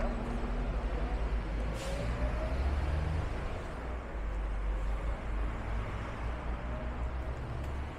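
Street traffic: a motor vehicle running close by, a steady low rumble with a faint whine that slowly rises and falls, and a short hiss about two seconds in.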